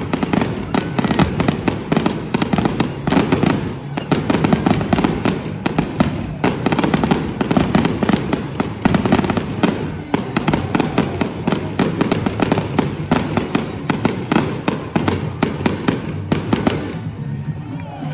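Aerial fireworks in a rapid, dense barrage: many overlapping bangs and crackles over a low rumble, thinning out near the end.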